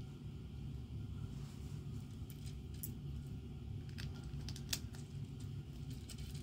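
Plastic LEGO bricks clicking and rattling as pieces are picked from a loose pile and pressed onto a partly built model: a scatter of sharp clicks, more of them in the second half and the sharpest about three-quarters of the way through, over a steady low rumble.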